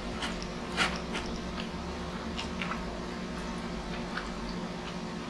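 Steady hum of a window-type air conditioner's compressor, picked up strongly by the microphone. Over it, close-up eating sounds: chewing and wet smacking clicks, the sharpest about a second in.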